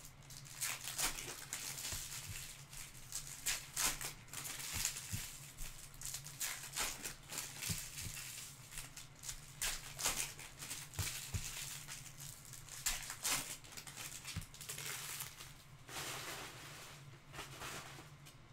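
Foil wrappers of Topps Chrome trading card packs crinkling and tearing as the packs are opened by hand, in irregular rustles with sharp crackles, over a steady low hum.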